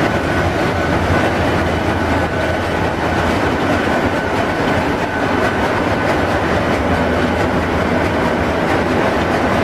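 Ship's engine-room machinery running: a loud, steady mechanical drone with a low hum and a faint high whine held throughout.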